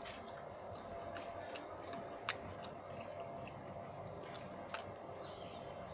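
A person chewing a mouthful of fried samosa (singada) with the mouth closed, giving a few soft crunchy clicks, the sharpest about two seconds in.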